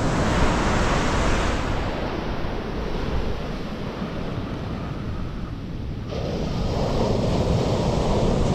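Ocean surf breaking and washing up a sandy beach, a steady low rumble under the hiss of the wash. The wash eases off in the middle and a fresh wave's rush rises again about six seconds in.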